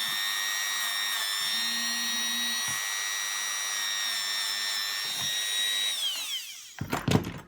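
Small high-speed power tool running with a steady high whine, then switched off and winding down in pitch. A few loud knocks near the end as it is set down.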